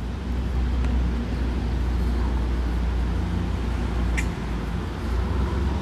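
Steady low outdoor rumble, with a short high chirp about four seconds in.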